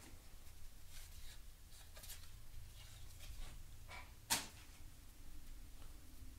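Paper baseball cards being flipped through in the hand: faint soft flicks and slides of card on card, with one sharper snap about four seconds in.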